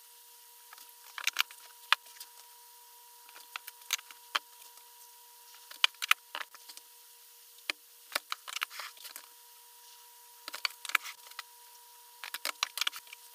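Plastic lids being pressed onto Ninja Creami pint containers and the tubs set down and stacked on a countertop: scattered clicks and knocks in small clusters, over a faint steady hum.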